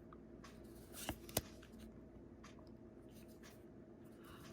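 Magic: The Gathering trading cards being handled and flipped one by one: faint card slides and taps, with two sharper snaps a little after a second in.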